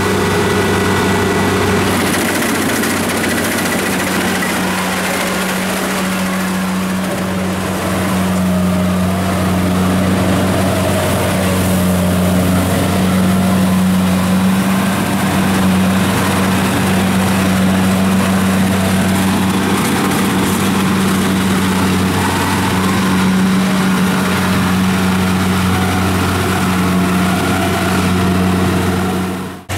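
Kubota DC70 rice combine harvester running steadily as it harvests, its diesel engine holding one constant pitch.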